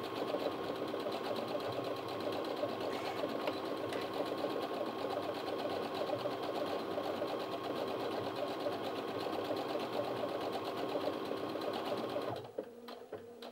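Brother Innov-is F420 computerised sewing machine stitching a decorative bicycle pattern at a steady speed. About twelve seconds in it stops on its own at the end of the pattern, set to finish the complete stitch by the reinforcement button, and a few light clicks follow.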